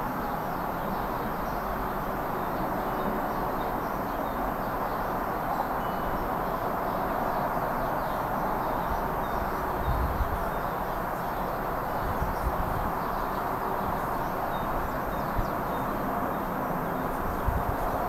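Songbirds chirping faintly over a steady background rush, with low wind buffets on the microphone about ten seconds in and again near the end.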